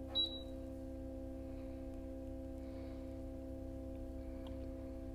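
Sous vide water-bath cooker running with a steady electrical hum. A short, high beep from its control panel comes just after the start as a button is pressed, and the hum cuts off at the very end.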